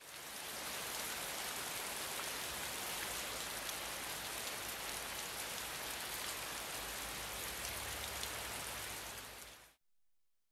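Steady falling-rain sound effect, an even hiss of rain with faint scattered drop ticks, stopping abruptly near the end.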